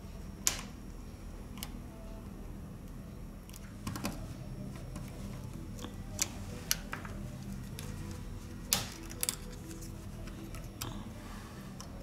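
Scattered sharp clicks and taps of small repair tools working on a smartphone, about eight or nine in all and irregularly spaced, over a steady low hum.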